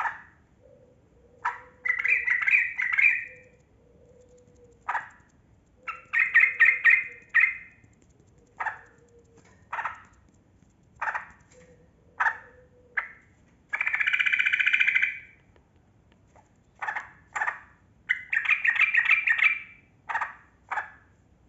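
Yellow-vented bulbul (trucukan) singing: short bright notes broken by four rapid chattering runs of a second or more, the long rolling phrase ('ropel') that keepers prize in a bird in full song. A faint low wavering tone sits between the phrases.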